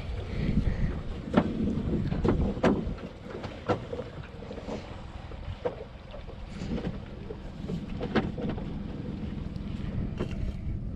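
Wind buffeting the microphone over a low rumble on a small aluminium boat, with about half a dozen sharp knocks and clunks scattered through as someone moves about at the bow.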